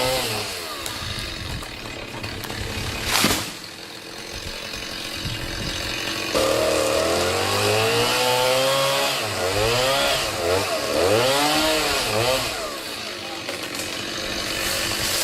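Chainsaw engine running, with a single sharp crack about three seconds in. From about six seconds the saw revs up and down repeatedly as it cuts.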